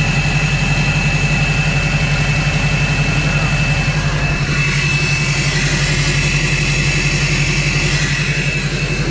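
Turbocharged diesel truck engine idling steadily and evenly, with a constant high whistle riding over the low engine pulse.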